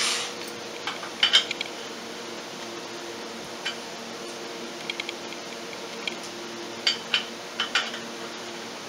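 An impact wrench on the ATV's primary clutch bolt cuts off right at the start. After that come scattered light metal clinks and taps of hand tools against the clutch, in two small clusters, over a steady low hum.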